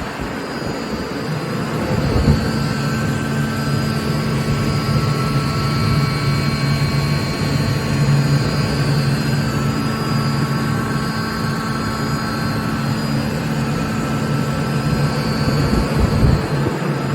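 Atlas Copco GA11 FF 11 kW direct-drive oil-injected screw air compressor running on load, a steady rush of air and machinery with a low hum and fainter high whine, as it builds pressure into the air receiver. The hum grows fuller about two seconds in.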